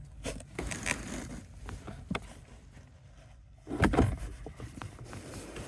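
Scattered clicks, taps and rustling of hands, screws and a hand tool as a replacement blower motor is fastened in place, with a louder clatter about four seconds in.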